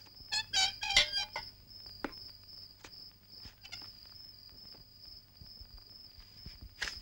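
Crickets chirring in a steady, continuous high trill, the night ambience of a film soundtrack. About a second in comes a brief cluster of loud, high, rapidly repeated notes, and a single sharp click sounds near the end.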